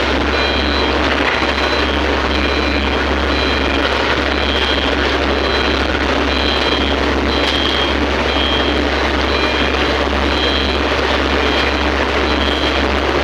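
Heavy earthmoving machinery running steadily, with a warning beeper sounding short high pips about once a second.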